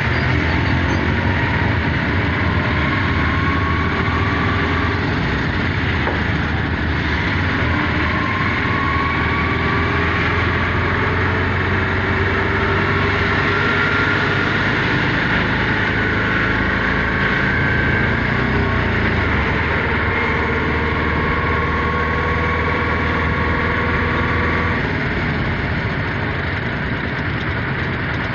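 A large engine running steadily with a low drone and faint held whines, the drone shifting a little near the end.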